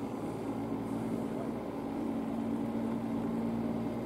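A steady mechanical drone with a constant low hum that holds one pitch throughout.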